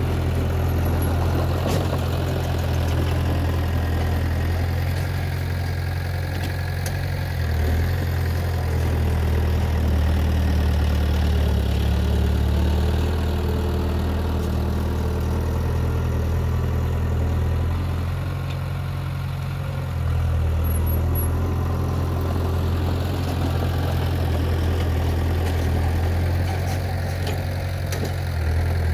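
Heavy diesel engine of earthmoving machinery running steadily at low speed, a deep even hum that grows a little louder about eight seconds in, eases off briefly, then picks up again about twenty seconds in.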